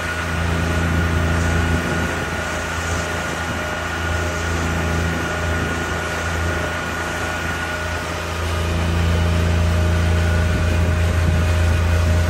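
Outboard motor of a small fishing boat running steadily with a low hum and a few steady higher tones. It gets somewhat louder about eight seconds in.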